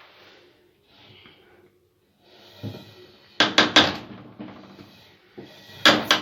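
Sharp knocks and clatter of kitchen items being handled: a quick cluster of three loud knocks a little over three seconds in and another near the end, over a faint background hum.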